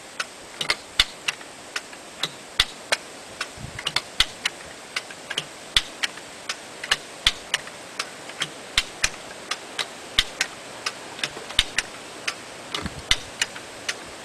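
A ratchet clicking in sharp, irregular strokes, about three a second, as a log turner is worked to roll a log.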